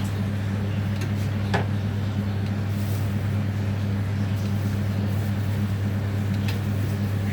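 Washing machine motor running with a steady low hum while it churns a batch of liquid soap, with a couple of faint clicks.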